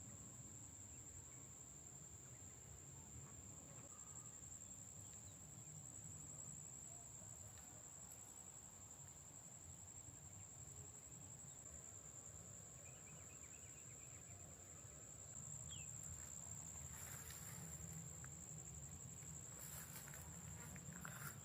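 Faint, steady high-pitched insect trill, like crickets, over a low rumble. A few brief rustles come near the end.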